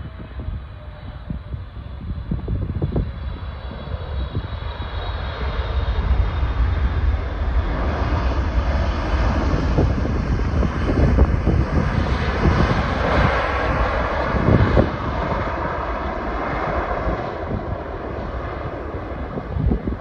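Jet engine noise from a Boeing 777-300ER's GE90 turbofans during the landing rollout just after touchdown, building over several seconds to its loudest about halfway as the airliner passes, then easing off.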